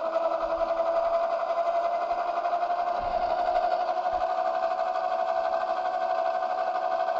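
Electric bike's 3000 W motor whining steadily under throttle, its pitch creeping slowly up as it runs up to speed in level 3.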